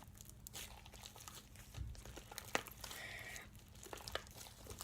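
Sticky slime being squeezed and stretched by hand, giving faint scattered clicks and crackles.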